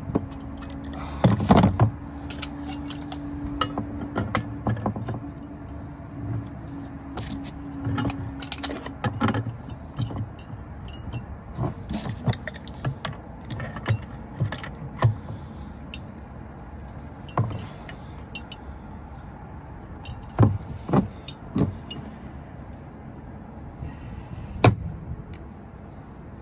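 Metal clinks, knocks and scrapes of a crescent wrench and pipe fittings as a new furnace gas valve is tightened onto the gas manifold. They come irregularly throughout, over a steady low hum that fades out after about nine seconds.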